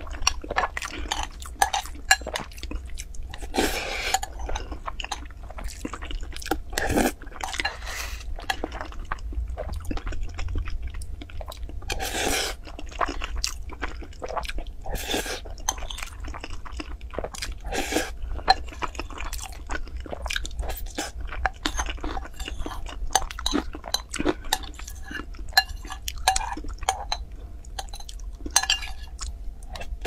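Close-miked eating sounds: a person chewing and biting spoonfuls of fried rice, with a metal spoon clinking and scraping against a glass bowl.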